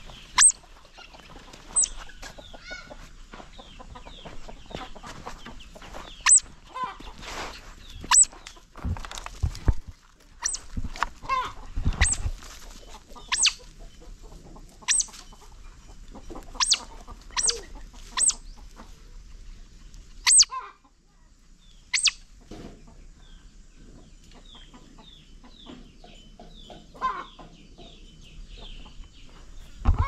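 Baby otter pup giving sharp, high-pitched squeaks, one every second or two, over chickens clucking around the yard. A few low bumps come in the middle, and the squeaks become fainter and sparser after about twenty seconds.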